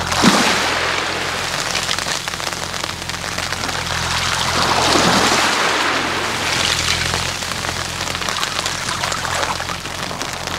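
Small waves washing up a pebble beach and draining back through the stones, a hissing, crackling wash that swells and fades every few seconds.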